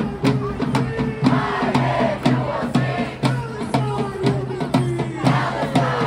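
Crowd of protesters chanting in unison to a steady drum beat, about two strikes a second.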